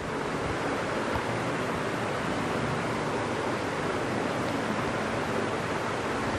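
Steady, even hiss of noise, like static or rushing air, with no pitch to it.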